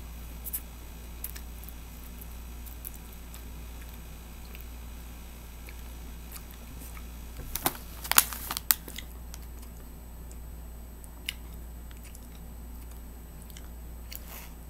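A person eating cotton candy close to the microphone: soft chewing and mouth sounds with scattered small clicks, and a short cluster of sharp clicks about eight seconds in. A steady low hum runs underneath.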